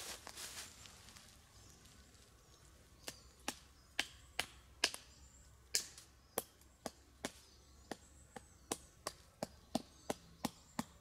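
A home-made wooden tent peg, a forked branch sharpened at the tip, being driven into the forest floor: a run of sharp wooden knocks beginning about three seconds in and speeding up to about three a second. Faint rustling comes before the knocking starts.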